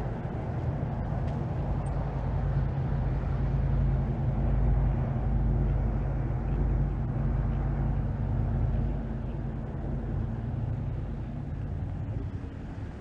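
A low, steady engine hum that grows louder toward the middle and fades near the end.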